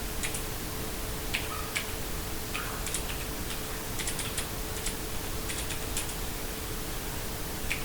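Keystrokes on a GK61 hot-swappable mechanical keyboard: irregular, unhurried typing, a few sharp key clicks each second with short pauses between them.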